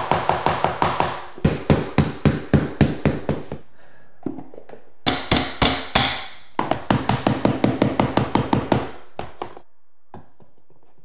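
Claw hammer tapping a pry bar hooked over the edge of a luxury vinyl plank, knocking the last plank against the wall into its click-lock joint. Quick light taps, about five a second, in several runs with short pauses between.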